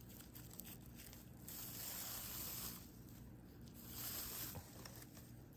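Raffia yarn rasping as a double strand is drawn through crocheted stitches with a sewing needle, in two long pulls: one about a second and a half in, a shorter one about four seconds in.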